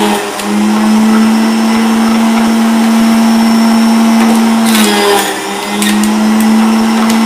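Hamilton Beach HealthSmart centrifugal juice extractor running with a steady motor hum as ginger is fed through the chute and shredded; the hum dips in pitch briefly twice, about half a second in and about five seconds in. A few sharp clicks near five seconds.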